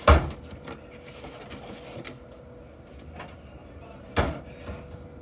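Two loud metal clunks, one at the start and one about four seconds in, with lighter clicks and knocks between them, from handling the drink section of a soda vending machine while loading it with cans.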